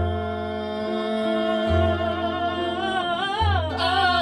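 A woman singing one long held note that turns to vibrato about three seconds in, over upright bass notes plucked roughly every second and a half.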